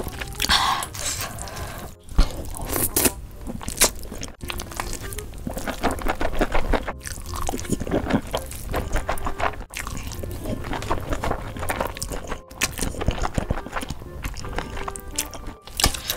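Close-miked wet slurping and chewing of thin noodles in thick, saucy red chili sauce, with faint background music.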